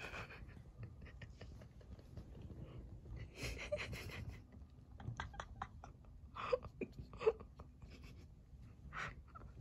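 Faint breathing close to the microphone, with a few short breathy puffs about three and a half, six and a half, seven and nine seconds in.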